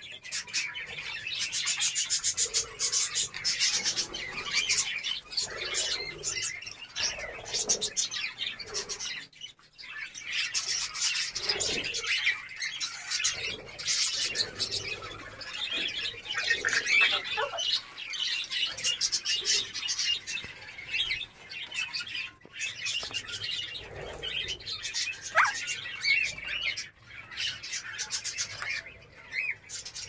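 Aviary flock of caged pet parrots and budgerigars chirping and chattering without pause in a dense, high-pitched chorus, with a single rising whistle near the end.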